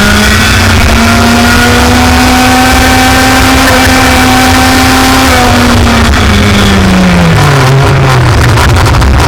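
Racing kart engine at full throttle, its pitch climbing slightly and holding high for about five seconds, then dropping over a couple of seconds as it comes off the throttle, and picking up again near the end.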